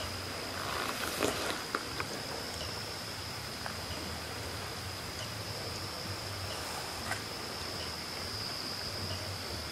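Night insects trilling steadily at one high pitch over a faint hiss, with a few small clicks about a second in and again around seven seconds.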